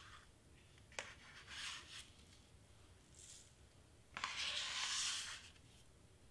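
A metal ruler scraping spilled tiny beads across a cutting mat: a sharp tick about a second in, a few short scrapes, then a longer scrape about four seconds in.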